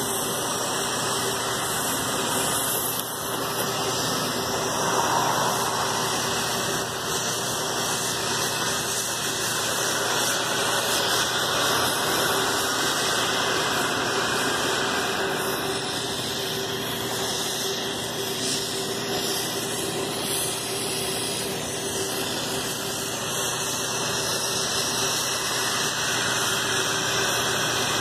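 Oxy-fuel machine cutting torch hissing steadily as its flame and cutting-oxygen jet burn through steel plate, with a faint steady hum underneath.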